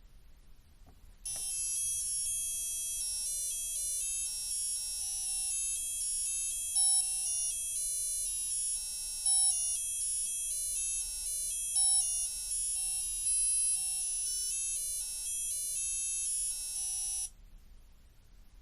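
Gakken digital alarm clock playing its electronic alarm melody: a single-line tune of high, beeping notes. It starts just after a faint click about a second in and cuts off suddenly near the end.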